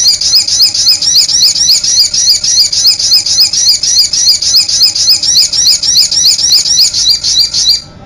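A sogok ontong bird's call from a lure and tutor recording: a fast, even run of sharp, high chips, about six or seven a second, each rising and falling. It cuts off abruptly near the end.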